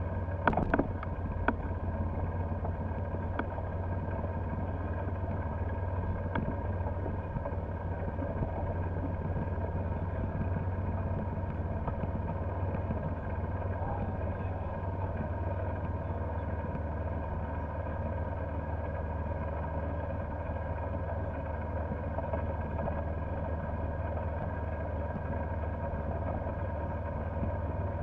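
Golf cart driving over grass: a steady low drone from the cart, with a few sharp knocks in the first two seconds.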